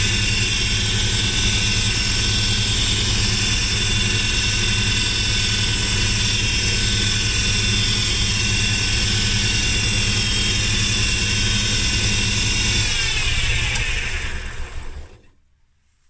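Wood lathe motor running steadily while a pen blank spins, then switched off about 13 seconds in, its pitch falling as it winds down to a stop.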